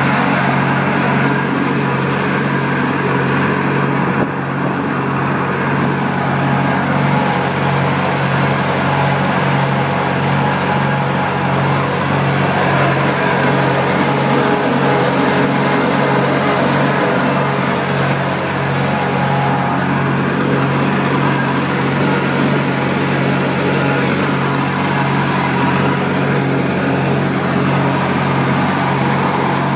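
Engine of a 1950 Massey-Ferguson tractor running steadily as the tractor is driven along.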